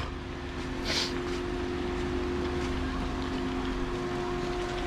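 Steady background hum and low rumble holding two even tones, with a brief hiss about a second in.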